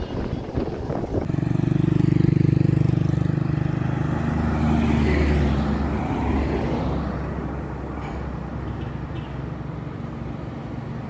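A motor vehicle's engine passing by on the road. Its hum swells about a second in, drops in pitch a few seconds later as it goes past, then slowly fades.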